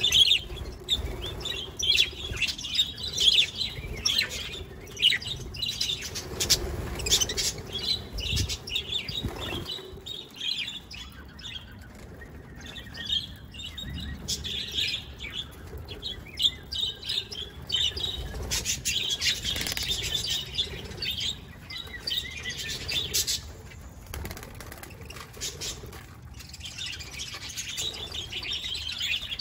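A large flock of budgerigars chirping and chattering, with wings flapping as birds fly about; the chatter swells and dips in waves.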